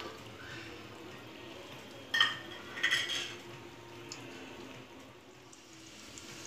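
A steel slotted spoon stirring almonds and cashews frying in ghee in a steel pot, with a faint sizzle. Two sharper metal clinks of spoon on pot come about two seconds in and again about a second later.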